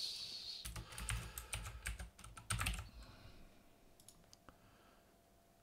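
Computer keyboard being typed on: a quick run of keystrokes for about the first three seconds, then a few scattered clicks.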